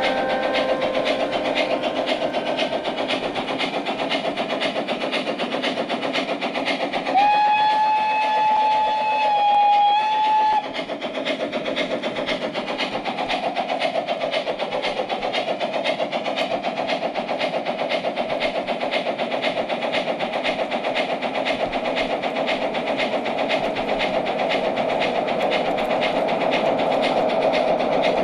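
LGB 20273 Rhaetian Railway G-scale model steam locomotive's onboard sound system chuffing steadily while its wheels clatter along the track. About seven seconds in it gives one whistle blast lasting about three seconds, the loudest sound.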